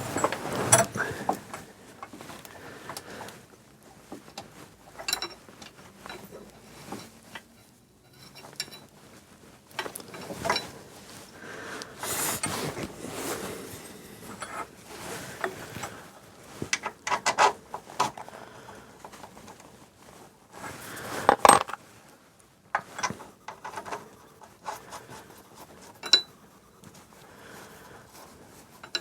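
Hand tools and steel fittings clinking, scraping and knocking at irregular intervals while the gearbox mounts are being bolted up, with the loudest knock about two-thirds of the way through.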